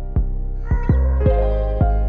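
Background music: held electric piano and synth chords over a steady low beat, about two thumps a second.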